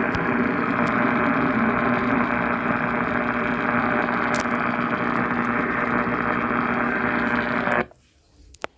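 Steady static hiss with a low hum from a weather radio receiver, cutting off abruptly near the end.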